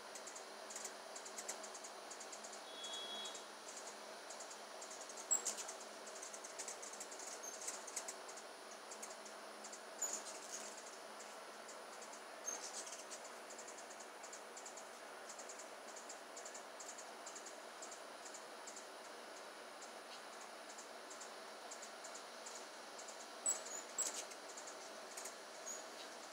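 Quiet garden ambience: faint, very high-pitched chips and ticks scattered throughout, with a few sharper, louder clicks, over a faint steady hum.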